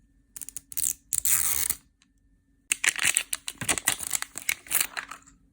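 Plastic packaging of a Zuru 5 Surprise Mini Brands capsule being opened by hand: a few small clicks, a short tearing rip about a second in, then a couple of seconds of crinkling plastic.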